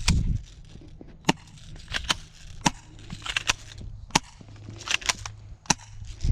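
Airsoft guns firing single shots: a string of sharp cracks at uneven spacing, about one every half second to a second, some coming in quick pairs.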